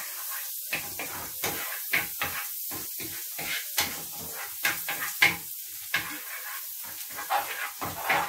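Chopped garlic sizzling in melted butter in a frying pan, with a wooden spoon stirring and knocking against the pan many times at an irregular pace.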